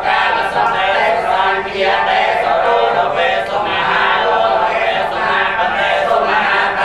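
Group of Cambodian Theravada Buddhist monks chanting together in unison, one continuous many-voiced recitation.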